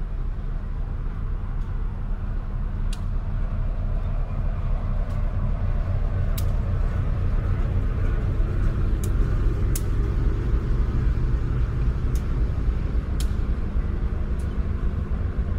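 Diesel locomotive passing with a train of passenger coaches: a steady low engine rumble that grows louder as the locomotive goes by in the middle, then the coaches rolling past. Scattered sharp clicks of the wheels passing over rail joints.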